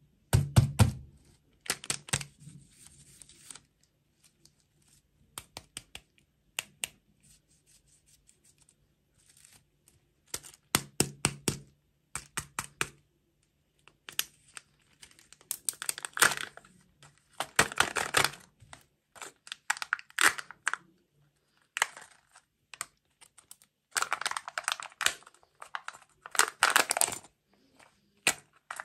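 Irregular crinkling, tearing and clicking of plastic candy packaging being handled and opened, in short bursts with pauses between.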